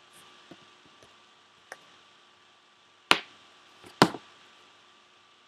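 A few faint ticks, then two sharp knocks about a second apart, from a phone or tablet being handled on a desk, over a faint steady electrical hum.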